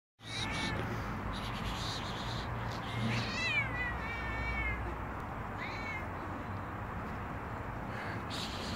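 Stray cats meowing: about four calls, the longest and most drawn-out one about four seconds in, with shorter ones at the start and around six seconds.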